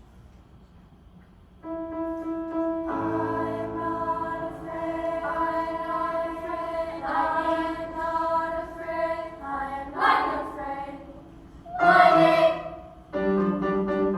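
A choir singing sustained, wordless chords that come in after about a second and a half of quiet and build up in layers. Two brief louder swells break through near ten and twelve seconds, and moving accompaniment notes start just before the end.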